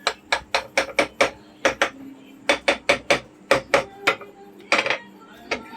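Hammer blows on a ceiling fan's metal housing, knocking the parts loose to open it: about twenty sharp strikes in quick runs of three to five, with short pauses between.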